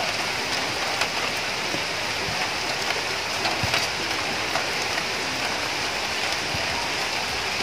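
Steady rain falling, a constant even hiss with scattered light ticks.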